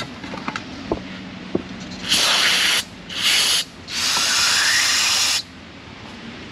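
Aerosol spray can hissing in three bursts, the last about a second and a half long, after a few light metal clicks. The spray is flushing crud out of a brake caliper bracket's slide-pin bores.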